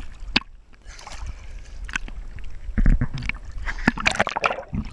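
Sea water sloshing and splashing around an action camera held at the surface, with irregular splashes and low rumble as the camera bobs at the waterline; there are louder splashes about three and four seconds in.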